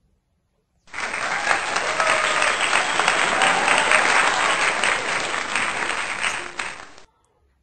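Crowd applause laid on as a sound effect, starting abruptly about a second in and cutting off sharply about half a second before the end.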